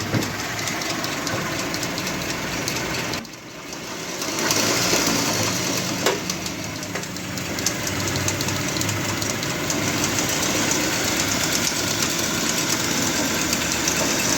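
Car engine running with a rapid, dense ticking. It drops briefly about three seconds in, then comes back louder from about four and a half seconds on. The engine is not running smoothly and makes an abnormal noise as the accelerator goes up and down.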